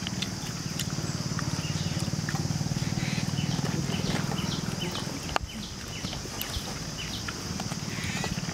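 Rural outdoor ambience: a steady high insect drone and scattered short bird chirps over a low, steady, rapidly pulsing hum, with one sharp tap about five seconds in.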